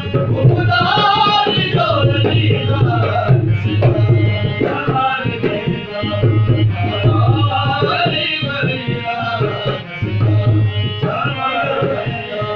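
Male voice singing a Punjabi devotional song to a hand-played dholak barrel drum and a harmonium. The drum keeps a steady folk rhythm and the harmonium holds sustained reedy chords under the voice.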